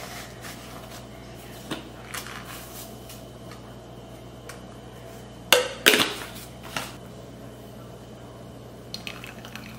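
Kitchen handling sounds while making pour-over coffee: a paper filter and dripper being handled and ground coffee tipped in, with scattered light clicks and two sharp knocks on the countertop about five and a half seconds in, over a faint steady hum.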